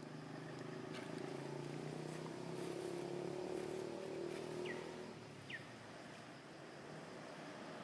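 A motor vehicle's engine humming in the distance, growing louder and then fading away as it passes. Two short, high, falling chirps come near the middle.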